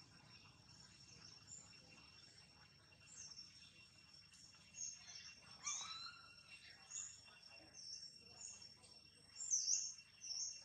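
Birds chirping in short, scattered high calls, the loudest cluster near the end, over a thin steady high-pitched insect drone; faint.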